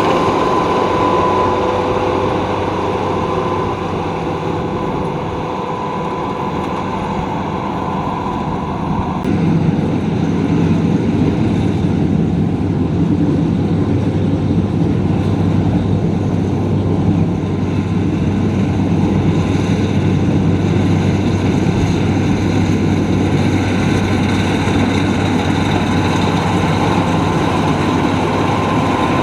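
Luvol RD18 combine harvester running steadily as it works. A thin whine over the engine stops suddenly about nine seconds in, after which the low engine hum is louder.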